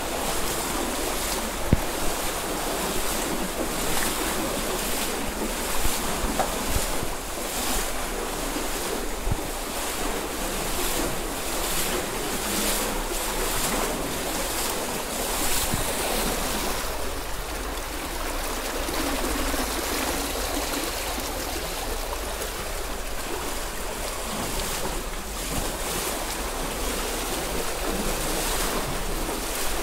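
Shallow, fast stream rushing over stones, a steady wash of flowing water, with wind rumbling on the microphone and scattered short splashes.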